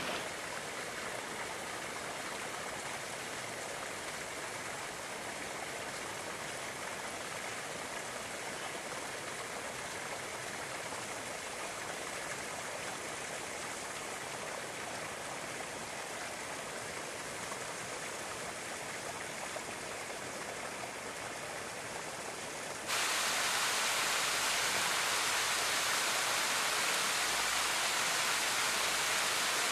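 Water of a volcanic hot spring running steadily in a shallow pool. After about twenty seconds it changes abruptly to the louder, brighter splashing of thin streams of thermal water falling over rock.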